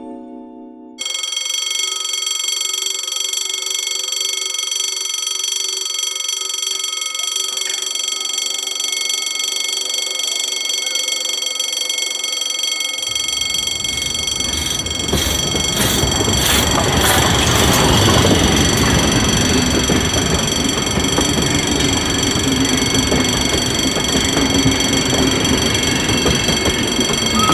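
A short jingle ends, then an electric alarm bell rings steadily, without a break. About halfway through, a steam locomotive passes: a loud rush of noise swells in and rises, with a run of clattering at its loudest, while the bell keeps ringing.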